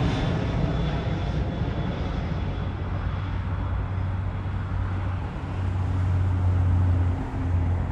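Jet airliner engines, loud at first with a high whine that fades over the first couple of seconds, then a steady low rumble that swells again toward the end.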